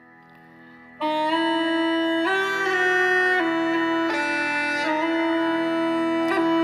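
Bagpipe music: a melody of stepped notes comes in about a second in over a steady drone.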